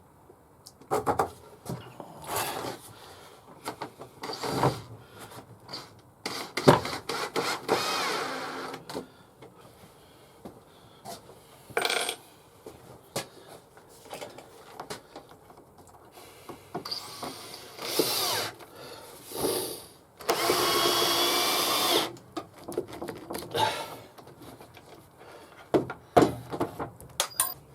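Power drill running for about a second and a half near the end, driving a screw into wood. Around it are scattered knocks and clicks of wood and tools being handled.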